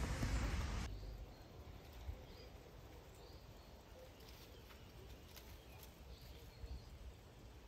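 Quiet garden ambience with faint, scattered bird chirps and a few light clicks. A louder rushing noise fills the first second and cuts off abruptly.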